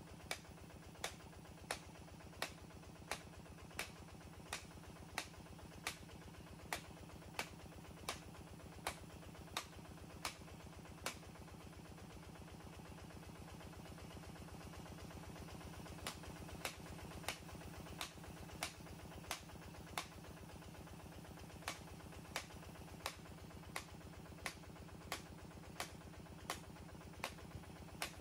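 Water-well drilling rig's engine running steadily, with a sharp click repeating at an even beat of about one every three-quarters of a second.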